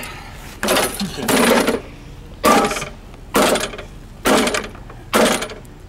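Recoil starter cord of a green walk-behind lawnmower being yanked hard, six times in quick succession about once a second, each pull a harsh rattle; the engine does not catch.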